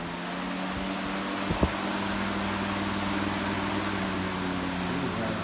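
Lasko 3733 box fan with a capacitor-run motor running on high: motor hum over a steady rush of air, building over the first second and then holding even. A brief knock about a second and a half in.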